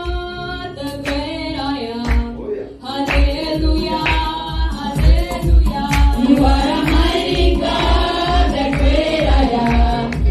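Singing with musical accompaniment, several voices together; a steady low drum beat comes in about three seconds in.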